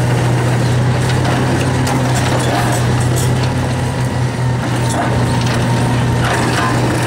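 Excavator diesel engine running with a steady low drone while its NPK SV500 hydraulic crusher works reinforced concrete, with scattered cracks and the clatter of concrete pieces breaking and falling.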